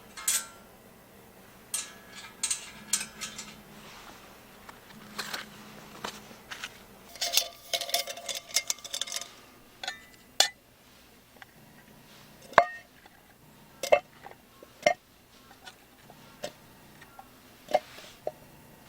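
Irregular clinks and knocks of metal items being handled and set down, a few ringing briefly, with a cluster of rattling clinks near the middle.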